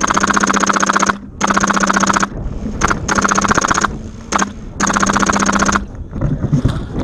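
Custom HPA-powered G&P M249 Para airsoft light machine gun firing full-auto: four bursts of about a second each, with two very short bursts between them, each a fast, even stream of shots with a steady buzz.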